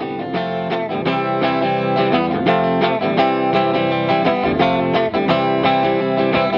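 Background music: a guitar playing a run of quick, evenly spaced plucked notes.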